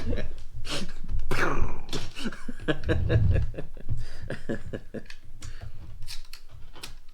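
Plastic Lego pieces clicking and rattling as they are handled and pressed together, in a series of short sharp clicks, with a brief vocal sound about a second and a half in.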